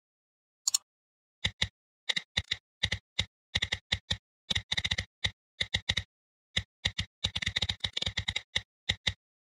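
Typing on a computer keyboard: a single click, then irregular bursts of keystrokes, some quick runs and some single taps with short pauses between.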